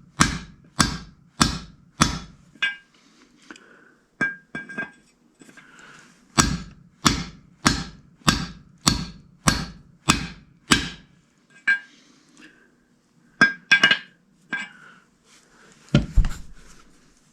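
Hammer blows on a 36 mm axle nut socket, used as a driver to knock the old bushing out of a Ford C6 transmission's extension housing, each strike a sharp metallic ring. There are four steady blows about 0.6 s apart, a few light taps, then a run of about eight more at the same pace, and a few scattered blows near the end.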